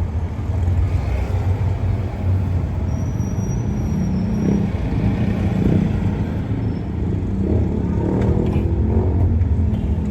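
A motor vehicle's engine running steadily, a low even hum, with a few faint clicks near the end.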